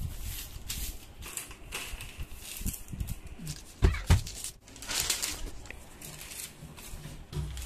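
Thin sheet of kite paper rustling and crinkling as hands smooth and fold it against a hard floor, with light taps throughout and two dull thumps about four seconds in.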